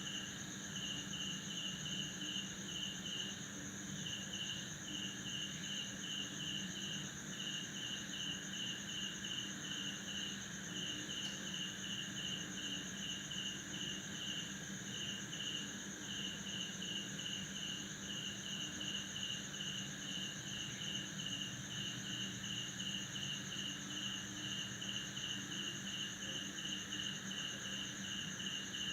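Night chorus of crickets chirping: a continuous high trill over a pulsed chirp repeating about twice a second. A low steady drone runs beneath.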